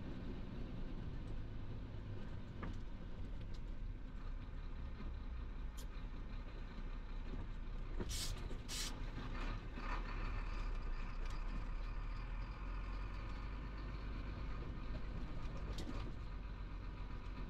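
Chenglong heavy truck's diesel engine and tyres running at road speed, a steady low rumble heard inside the cab. About halfway through come two short sharp hisses in quick succession.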